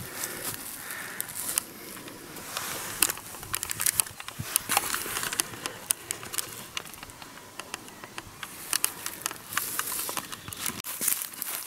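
Footsteps on a forest floor: irregular crackles and snaps of leaf litter and twigs underfoot.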